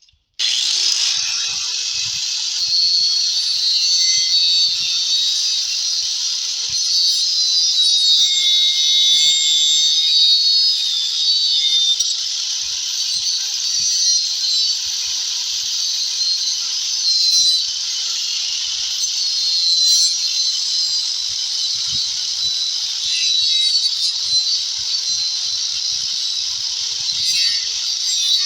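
A power tool cutting into the wooden subwoofer box to open the speaker hole, running as a steady, loud, high-pitched whine.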